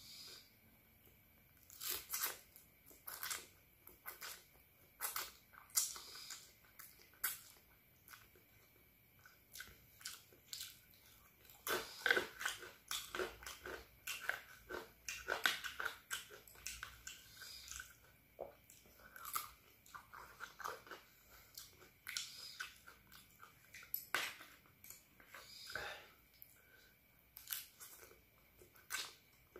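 Close-up eating of fried instant noodles: irregular chewing and mouth smacking with crunchy bites, in uneven clusters.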